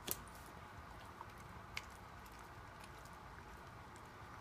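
Dog chewing and picking apart a ball: faint, scattered clicks and crunches of teeth on the ball, the sharpest just at the start and another a little under two seconds in.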